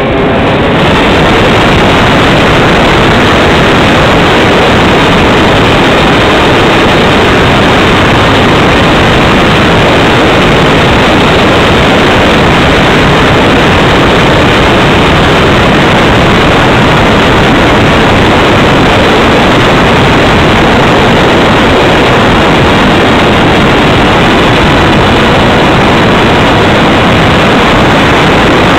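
Radjet 800 electric flying wing's motor and pusher propeller at sustained high throttle, heard from a camera on board the plane, mixed with the rush of air over the airframe. The sound is loud and steady, a dense roar with no change in pitch.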